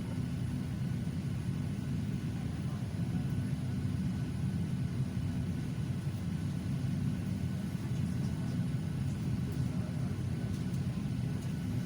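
Steady low rumble of an airplane, with no change in pitch or level.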